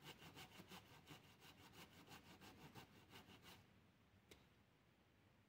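A blade worked back and forth across a wooden upright pole, cutting a groove for cordage to sit in: quick, even scraping strokes, about five a second, that stop about three and a half seconds in. A single light click follows a moment later.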